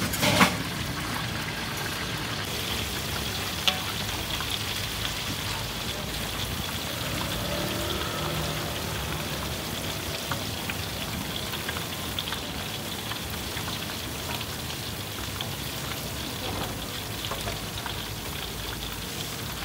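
Potato slices deep-frying in a pot of hot oil: a steady sizzling crackle. A sharp knock comes about half a second in and another near four seconds.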